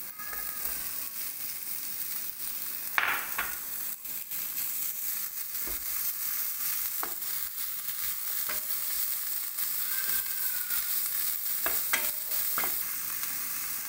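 Chicken, onion and capsicum frying in oil in a pan, a steady sizzle, while being stirred. A spatula knocks against the pan several times, near three seconds in, around six and seven seconds, and twice near twelve seconds.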